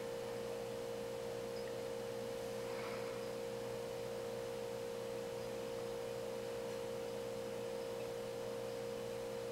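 A steady, unchanging tone at one pitch, with a fainter hum of lower tones beneath it.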